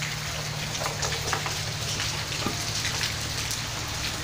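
Steady rain falling, with scattered drips close by.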